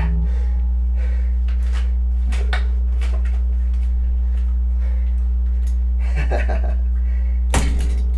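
Steady electrical hum from a plugged-in electric guitar rig with the strings left unplayed, with a few light clicks and knocks as the guitar is handled, and one sharper knock near the end as it is set down on its stand.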